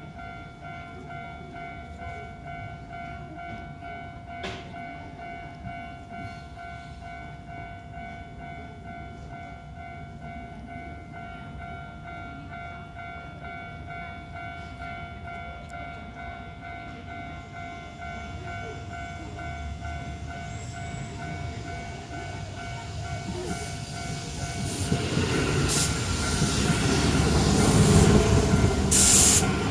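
Japanese level crossing's warning bell ringing steadily. Over the last several seconds a Keihan electric train comes through the crossing, growing loud as it passes.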